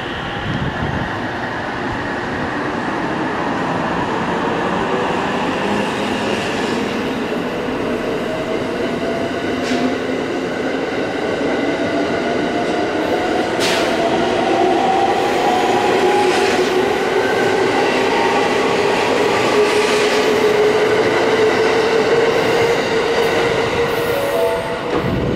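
JR West Thunderbird limited express electric train pulling out, its traction motors whining in a tone that rises slowly in pitch as it gathers speed, over the rumble of the wheels, with a few sharp clicks from the wheels on the rails.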